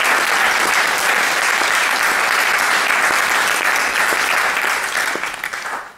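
Concert hall audience applauding steadily, the applause dying away near the end.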